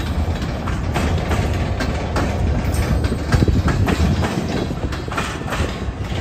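Freight cars, flatcars and a boxcar, rolling past: a continuous low rumble of wheels on rail, broken by irregular sharp clacks and clanks from the wheels and couplers.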